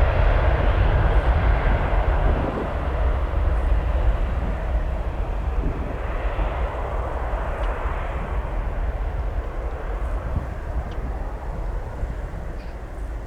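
Jet engines of a Boeing 737-800, its CFM56-7B turbofans at takeoff power: a steady deep rumble with a rushing noise that slowly fades as the aircraft moves away.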